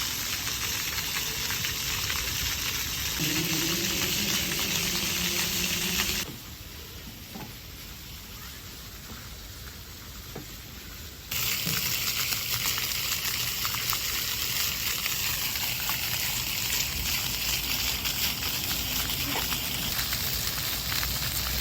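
Water spraying and splashing from a play fountain: a steady rushing hiss. It drops abruptly to a quieter hiss about six seconds in and comes back at full strength about five seconds later.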